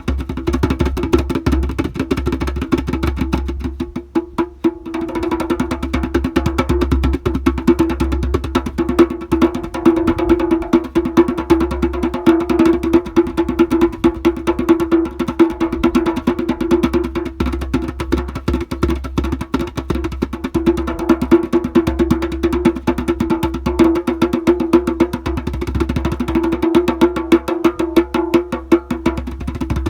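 A large drum struck in a fast, continuous stream of strokes, its head ringing at one steady pitch under the hits, with a brief lull about four seconds in.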